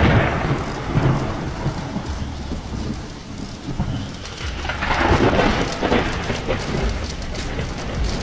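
Rain falling steadily with rolling thunder, which swells at the start and again about five seconds in.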